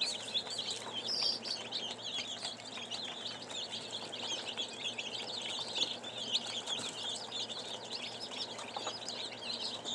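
Many small birds chirping and peeping at once, a dense, continuous chorus of short high chirps.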